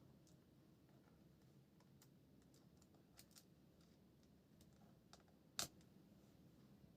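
Faint, scattered light clicks and taps over near silence, with one sharper click about five and a half seconds in.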